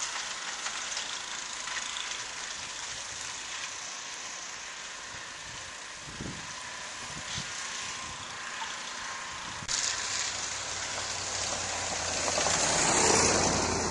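Steady outdoor hiss of a wet snowstorm with wind on the microphone. A little under ten seconds in the sound changes abruptly, and a low rumble with a louder hiss swells near the end.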